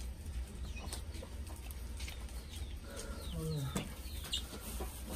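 Domestic chickens clucking, with scattered short high chirps over a steady low rumble.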